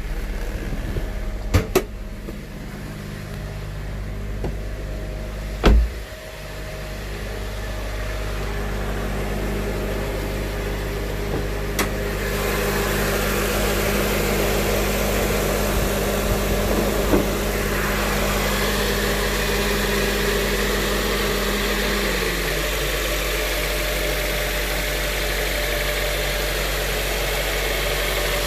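2007 Acura TSX engine idling steadily, with a couple of sharp clicks near the start and a single loud thump about six seconds in. The engine sound gets louder and fuller about twelve seconds in.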